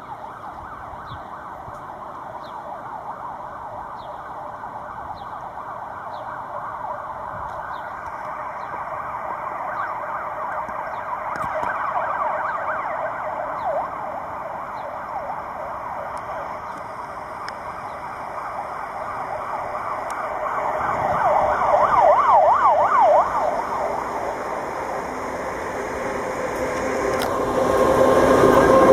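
A siren wavering rapidly up and down in pitch, loudest about two-thirds of the way through. Over the last few seconds the SŽ class 363 electric locomotive and its freight train grow louder as they draw close.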